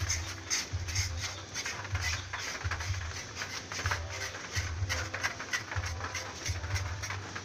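Rhythmic scraping strokes, about two a second: a blade being scraped over a pig carcass's hide to strip off the bristles.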